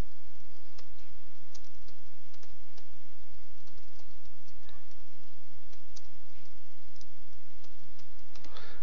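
Computer keyboard typing: irregular key clicks over a steady low hum, with a short rush of noise near the end.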